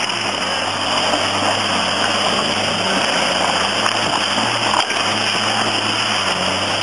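A Jeep Cherokee's engine running steadily at low revs as it crawls over rocks, a low even hum over a steady hiss.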